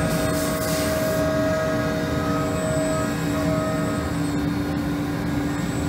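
Spindle of a Doosan VC400 vertical machining center running steadily at 1,000 RPM: a low hum with several held whining tones, and a brief hiss about half a second in.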